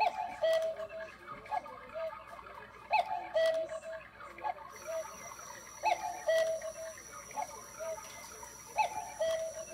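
Quartz cuckoo clock calling the hour at twelve, its electronic two-note cuckoo call, high then lower, repeating again and again. A faint steady high tone joins about halfway through.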